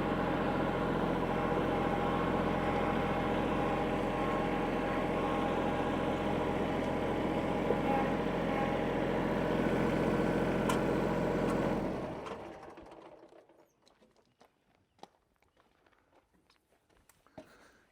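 Kubota L3301 tractor's three-cylinder diesel engine running steadily, then shut off about twelve seconds in and dying away over about a second. A few faint clicks follow.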